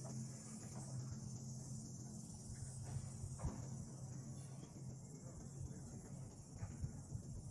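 A steady, high-pitched chorus of insects chirring in the forest, with a faint low hum beneath it and an occasional soft knock.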